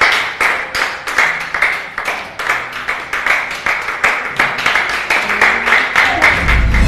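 Applause: a small group clapping steadily, with a deep rumble coming in near the end.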